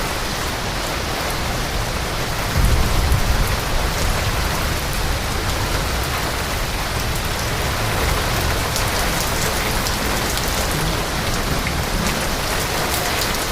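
Heavy rain pouring down steadily, with a brief louder low rumble about two and a half seconds in.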